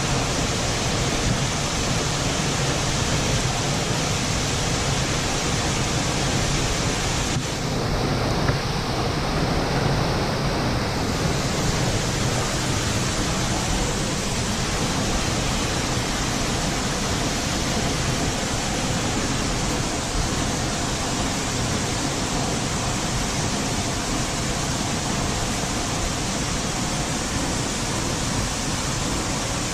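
Waterfall pouring, a steady rushing of falling water that is dulled in its highest part for a few seconds about eight seconds in.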